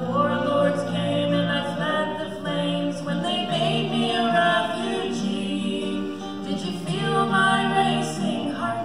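A woman and a man singing a song together in harmony, with acoustic guitar accompaniment.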